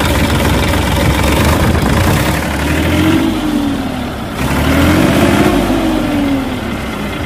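Massey Ferguson 245 DI tractor's three-cylinder Simpsons diesel engine running, revved up and back down twice, about three seconds in and again around five seconds in.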